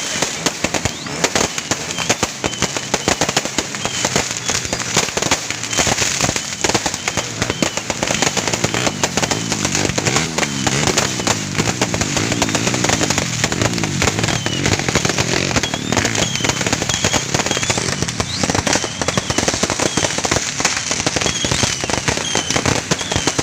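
Fireworks and firecrackers going off in a dense, unbroken string of cracks and pops, many each second.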